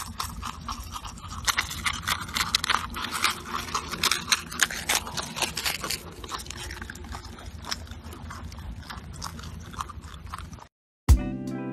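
Marmots chewing and crunching a piece of dry food, heard as a dense run of small crackling clicks over a low steady rumble. It stops abruptly near the end.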